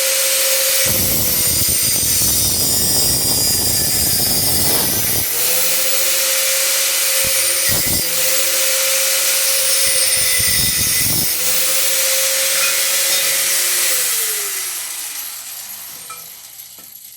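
A high-speed electric cutting tool is cutting through a small iron bar. A steady motor whine runs under loud cutting noise, which is heaviest in the first few seconds. Near the end the tool is switched off, and the whine falls away as it spins down.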